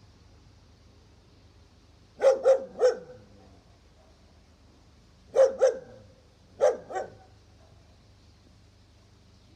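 A dog barking: three quick barks, then a pair and another pair a few seconds later.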